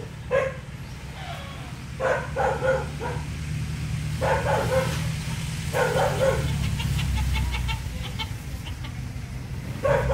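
Chickens clucking in short bursts every couple of seconds, over a steady low hum.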